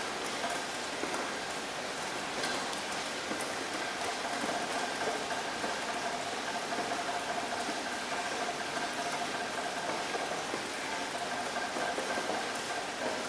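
Steady rain falling: an even, constant hiss with a few individual drops ticking through it.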